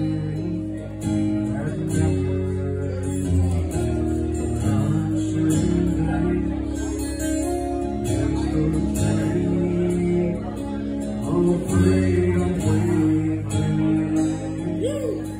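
A solo singer with an acoustic guitar performing a song live: chords played on the guitar under a sung vocal.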